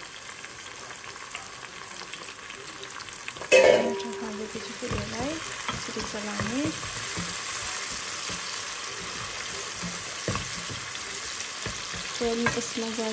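Onion and garlic masala frying in hot oil in a pan, stirred, with short squeaky scrapes against the pan. About three and a half seconds in there is a sudden loud burst of sizzle and clatter.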